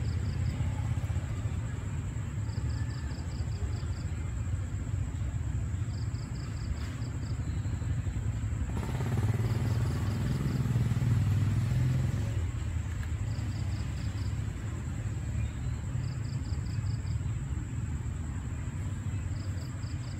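A steady low rumble that swells for a few seconds in the middle. Over it, a short high trill of rapid chirps repeats every three seconds or so.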